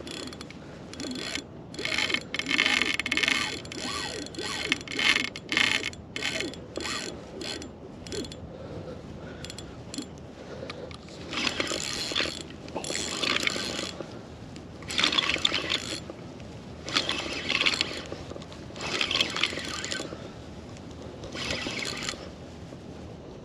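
Fishing reel ratcheting and clicking in repeated bursts under the strain of a hooked sturgeon. Many short bursts come in the first several seconds, then longer bursts about every two seconds.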